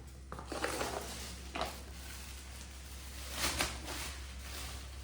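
Grocery packets rustling and crinkling as they are handled, in a few short bursts.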